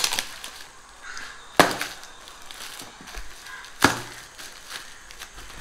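Cardboard shipping box being handled and pulled open: scattered scrapes and taps, with two sharp knocks, about a second and a half in and again near four seconds in.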